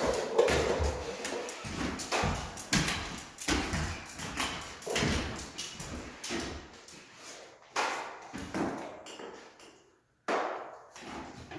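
Irregular knocks, taps and short scrapes of drywall taping work, the clatter of tools, tape and mud buckets. The sound cuts out briefly about ten seconds in.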